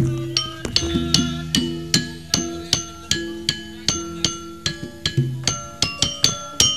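Javanese gamelan playing: bronze keyed instruments struck in a steady run of ringing notes, two or three a second, over a few deep gong tones, with the strokes coming faster near the end.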